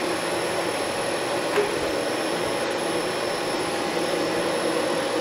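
Milling machine spindle running steadily at a slow reaming speed of about 450 RPM, driving a reamer through the valve guide bore of an aluminium cylinder head. A light tick comes about a second and a half in.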